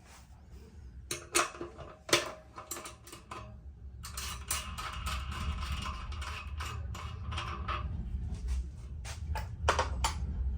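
Hands working on small bicycle parts: a run of sharp metal clicks and knocks, then about four seconds of scratchy handling noise, then more clicks near the end.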